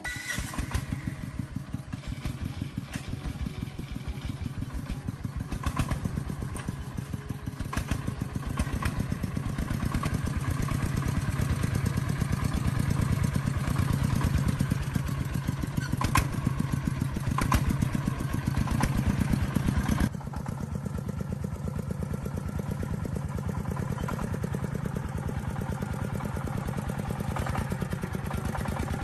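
Diesel engine running steadily with a fast, even chugging beat. It becomes quieter and duller about twenty seconds in.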